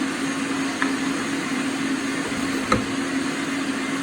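Electric blender motor running steadily at full speed, grinding a green masala paste with coriander and cumin seeds. A single light knock about two-thirds of the way through.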